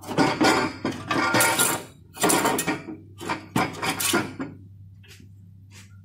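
Metal exhaust pipe clanking and scraping against metal as it is wrestled by hand into position under the vehicle, a quick series of clanks that stops after about four and a half seconds.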